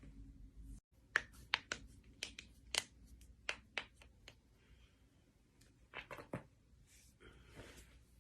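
Joints being cracked: a run of sharp pops and clicks, about eight in the first few seconds, then a quick cluster of several more about six seconds in.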